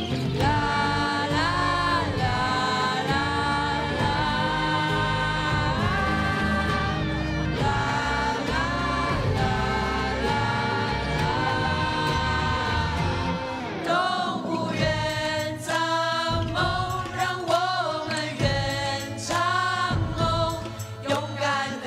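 A group of voices singing a pop song together over a backing track: long held notes through the first half, then shorter, choppier phrases from about two-thirds of the way in.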